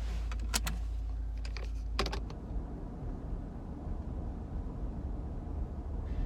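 Low rumble of a Ford F-150 with the 5.0 V8 rolling slowly, heard from inside the cab. A few sharp clicks come in the first two seconds.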